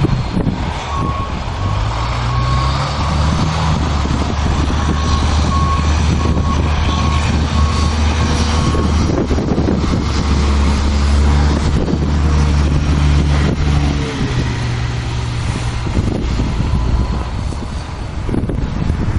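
A heavy vehicle's engine running, rising in pitch twice, with a series of short evenly spaced high beeps for the first half, like a reversing alarm.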